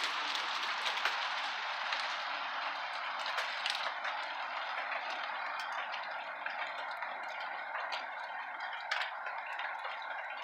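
Steady rain, with scattered drops ticking and dripping on nearby surfaces. It grows a little softer over the first few seconds.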